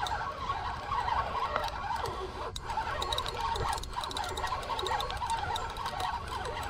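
Spinning reel being cranked against a hooked fish on a bent rod, its gears and bail giving a continuous irregular ticking and whirring.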